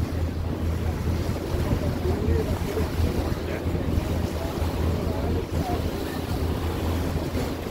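Lake Como passenger ferry under way: a steady low engine hum under rushing water along the hull, with wind buffeting the microphone.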